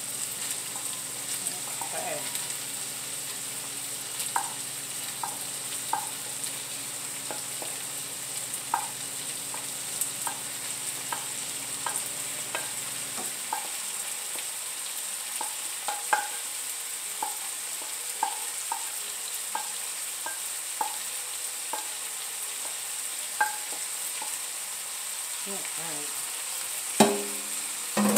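Ground pork sausage sizzling in a frying pan, a steady hiss broken by scattered small pops, as diced raw potatoes are tipped in on top of it. A louder knock and clatter near the end.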